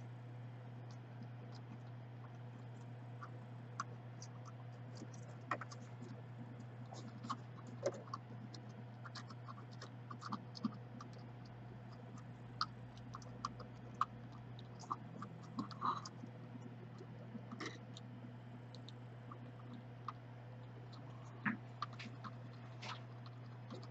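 Faint, irregular small ticks and crackles of a soldering iron working copper desoldering wick over old solder and flux on a laptop motherboard's DC jack pads, over a steady low hum.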